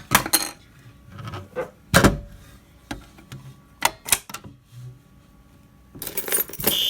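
Sharp clicks and clacks of a Notifier BG-12L fire alarm pull station being handled and pulled. About six seconds in, the fire alarm sounds: the horns come on loud, with a steady high tone just before the end.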